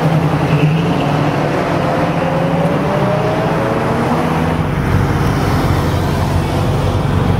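Car engines and road traffic noise, steady throughout, with an engine note slowly rising in pitch in the first few seconds and a deeper engine rumble from about halfway through.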